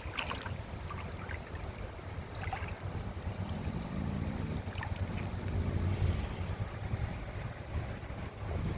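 Wind buffeting the microphone with a steady low rumble; a faint low hum rises slightly in pitch for a couple of seconds around the middle.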